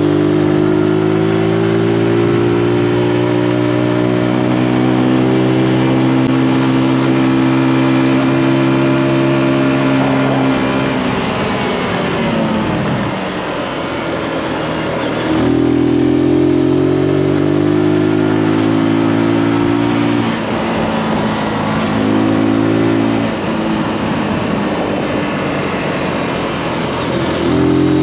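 Zontes G155's single-cylinder four-stroke engine under way at high revs. The engine note falls away as the throttle is closed about ten seconds in, then jumps back up about fifteen seconds in, and dips and picks up again a few more times.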